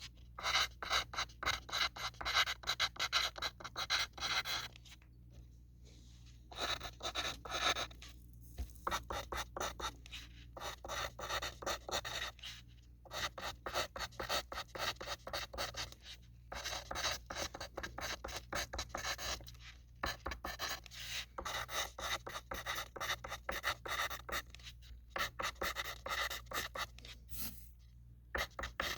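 Graphite pencil writing on a sheet of paper: quick, scratchy strokes in steady runs, with short pauses every few seconds as the pencil lifts.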